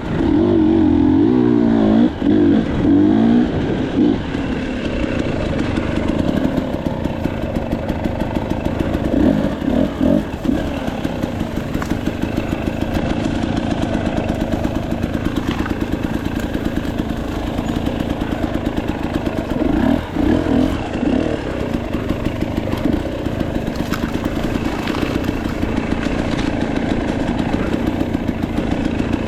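KTM 300 XC-W's two-stroke single-cylinder dirt bike engine being ridden, revved up and down a few times near the start, around ten seconds in and around twenty seconds in, and running at a low, steady pulse in between.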